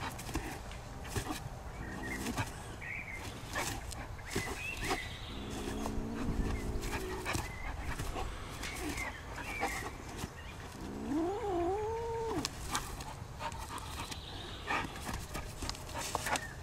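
Kitten vocalising defensively at a dog: a drawn-out steady growl about five seconds in, then a wavering yowl that rises and falls about eleven seconds in, with scattered small clicks and rustles.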